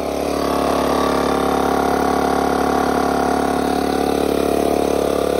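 An engine idling steadily: an even, low drone that grows a little louder over the first second and then holds.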